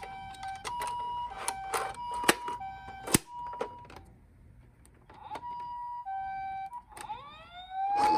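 Toy ambulance's electronic two-tone "pee-paw" siren alternating between a high and a low note, with sharp plastic clicks and knocks mixed in. It stops for about a second midway, resumes, and then a rising wailing siren starts near the end.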